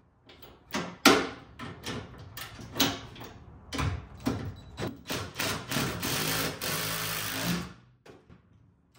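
A 14 mm socket on a wrench tightening the lock nut of a truck-bed rail clamp. First come separate sharp clicks and knocks, the loudest just after a second in; then a continuous run of about two seconds that stops suddenly.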